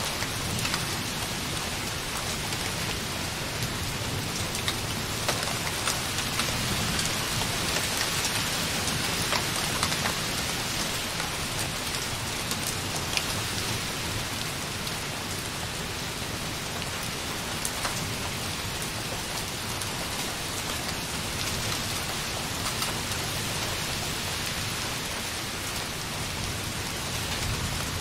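Light rain hitting a window softly in a steady wash, with many separate drop ticks. Distant thunder rumbles low underneath, strongest near the start.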